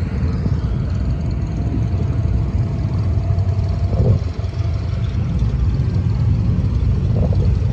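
Steady low rumble of an engine idling, with a faint steady whine above it and a brief louder moment about four seconds in.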